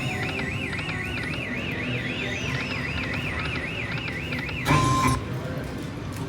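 Slot machine electronic sound effect: a warbling tone that wavers up and down about four or five times a second, then breaks off in a short loud burst with a brief beep about four and a half seconds in. Casino machine jingles and voices sound underneath.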